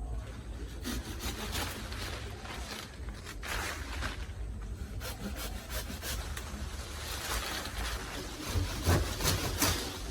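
Hand saw cutting through wood in a run of repeated strokes, with a few harder strokes near the end.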